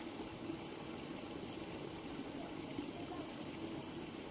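Steady, even background noise with no distinct events, like running water or a distant machine.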